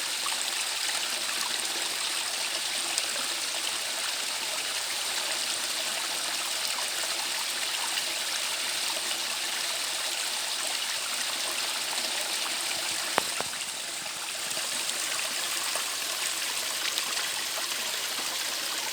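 Mountain valley stream running steadily over its bed, with one sharp click about thirteen seconds in.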